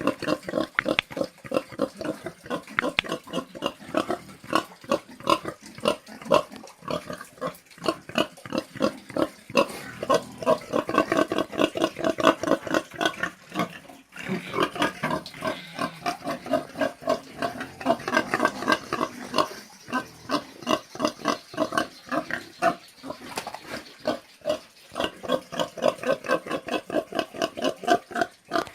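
Pigs grunting: short, rapid grunts, several a second, that run on almost without a break.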